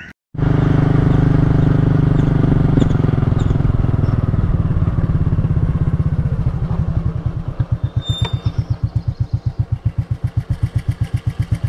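Motorcycle engine running steadily, then easing off into a slow, even idling throb over the second half.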